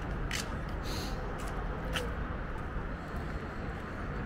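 Steady outdoor street noise with a low rumble of car traffic, and a few short sharp ticks scattered through it.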